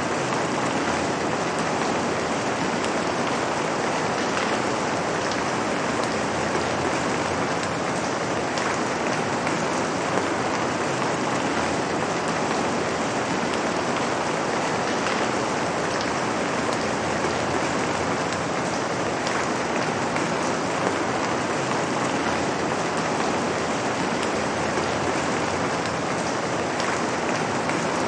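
Steady rain: an even hiss of falling water with faint separate drop ticks scattered through it, holding at one level.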